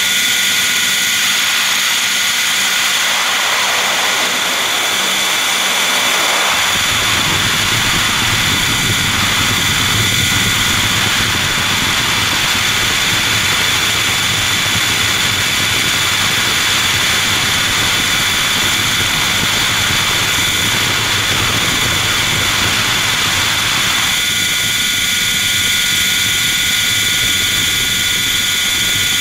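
RC helicopter heard from its own onboard camera: a steady high whine of motor and rotors. A rushing noise joins it about six seconds in and drops away about five seconds before the end.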